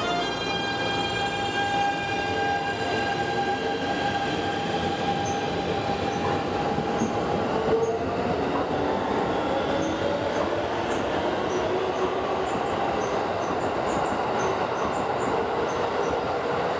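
Keikyu electric train pulling away and accelerating. Its Siemens GTO-VVVF inverter makes the traction motors sing the 'do-re-mi-fa' rising scale over the rumble of wheels on rail. A held note steps up in pitch about eight seconds in and keeps climbing.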